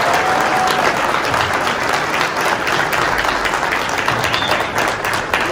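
A large seated audience applauding steadily.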